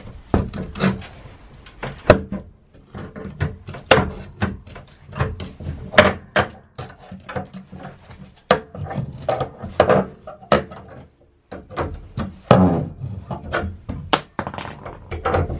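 Steel crowbar knocking and clanking against a metal angle bracket and wooden floor as it prises the nailed foot of a wooden staircase up off the floorboards. A long series of sharp, irregular knocks.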